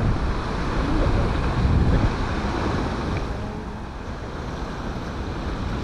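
Strong wind buffeting the microphone, heaviest in the first two seconds and easing after, over the steady rush of storm-driven sea surf.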